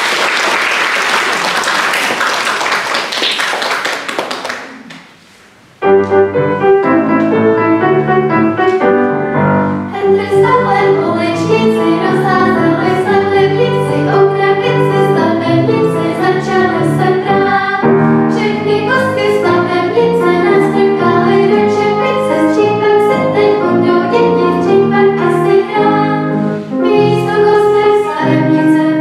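Audience applauding, dying away about five seconds in. Then a children's vocal quartet starts singing with piano accompaniment.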